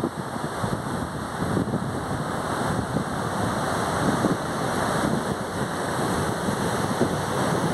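Wind buffeting the microphone over the steady rush of surf breaking along the beach.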